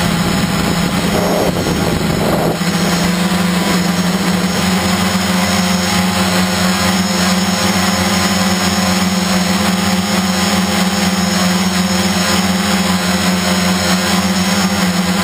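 Electric motors and propellers of a radio-controlled multicopter running steadily in a hover, a loud even hum heard from the camera on board. A short rush of wind noise comes about a second in.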